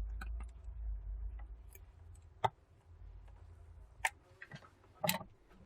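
Scattered sharp clicks and taps from an iPhone XR and small repair tools being handled as the phone is closed up, three louder clicks about a second apart in the second half, over a low handling rumble that fades early on.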